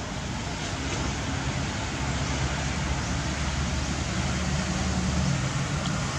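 A motor vehicle engine running steadily under a constant outdoor hiss, its low hum growing a little louder about two seconds in.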